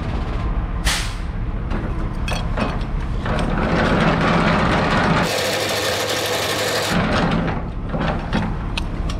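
Semi-trailer landing gear being cranked down by hand, with clicks and knocks from the crank, over a diesel truck idling. A burst of air hiss lasts about a second and a half just past the middle.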